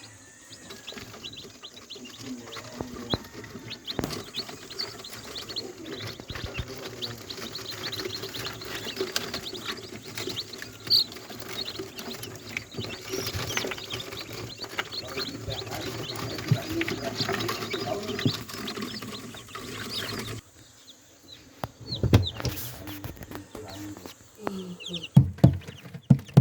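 Many ayam kampung chickens and chicks chirping and peeping together, over a dense patter of small clicks and scratching. About twenty seconds in the sound cuts to a quieter stretch with a few louder knocks.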